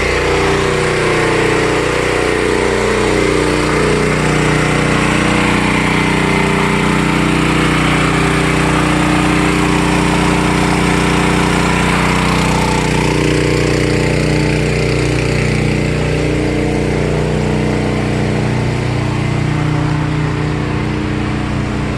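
CAT RP8000E portable gasoline generator's engine running steadily under load, powering a central air conditioner and the house. The sound gets a little duller about halfway through.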